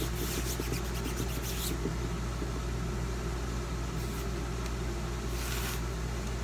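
Soft brushing and rubbing of a hand pressing a plastic adhesive silk-screen stencil against a fuzzy cloth to cut its stickiness. This is strongest in the first second or two and comes again briefly later, over a steady low background hum.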